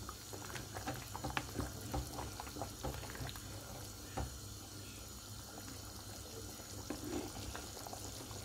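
Pot of beef pochero simmering: the tomato broth bubbles steadily. A plastic ladle stirs through it, with light clicks and knocks against the pot that thin out about halfway through.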